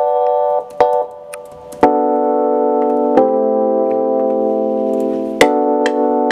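Sustained keyboard chords from a software instrument playing back from an FL Studio piano roll, as chords are auditioned for a melody. Each chord starts with a sharp attack and is held, changing about every one to two seconds.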